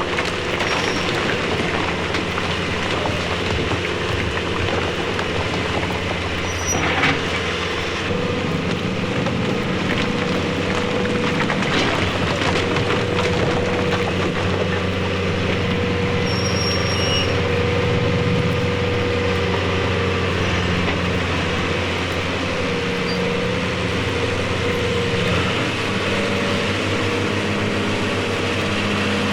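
A heavy machine running steadily with a low hum, a few brief high squeaks and a click about seven seconds in.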